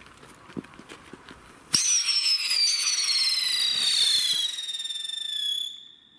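Vico 'Area 51' whistling ground-launched firework ignites with a sudden rush about two seconds in and gives a loud, piercing whistle. The whistle slides steadily down in pitch for about four seconds, then fades away near the end.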